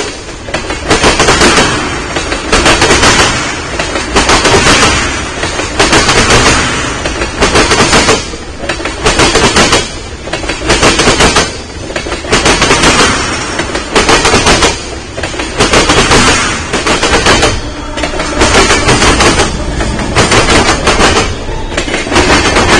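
Freight train wheels clattering over the track as loaded ethanol tank cars roll past. A loud burst of rapid clacking comes about every second and a half, as each set of wheels passes.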